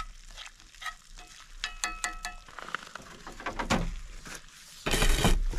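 Green beans sizzling in a cast-iron skillet while a utensil stirs them, with scrapes and several ringing clinks against the pan about two seconds in. Near the end comes a sudden loud rustle close to the microphone.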